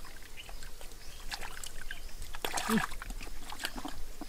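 Hands squelching and sloshing through thick mud and shallow muddy water, a run of small wet splashes and clicks that comes thickest about two and a half seconds in.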